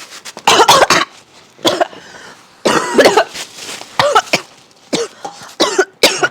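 A person coughing hard in repeated fits after choking on food: about seven harsh coughs and hacks, the loudest about half a second in and again around three seconds in.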